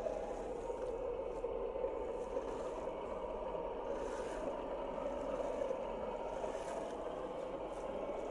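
1/10-scale RC crawlers' electric motors and geared drivetrains whirring steadily under load as the tyres churn and scrape through sticky mud.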